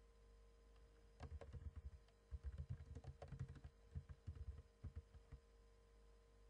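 Faint typing on a computer keyboard: a quick run of keystrokes starting about a second in and stopping a little after five seconds, over a low steady hum.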